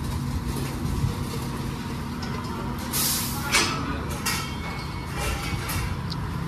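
Auto shop background noise: a steady low mechanical hum with several short bursts of hissing, and a few light clinks.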